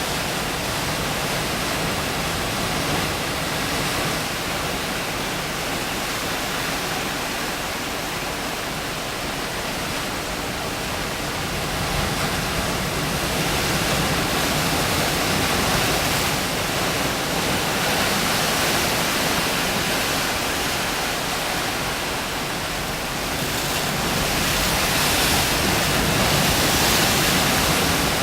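Ocean surf driven by a heavy typhoon swell, breaking on a rocky shore as a steady, rushing roar. It grows louder about halfway through and again near the end.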